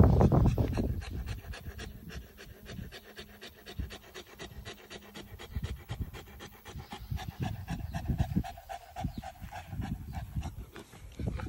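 Saint Bernard panting hard and fast, overheated and tired from walking in the heat. A brief louder rumble sits in the first second.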